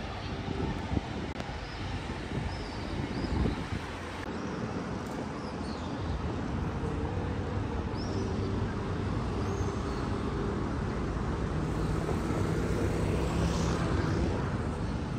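Steady city street traffic noise: a continuous rumble of passing vehicles with engine hum, and a few faint high chirps scattered through it.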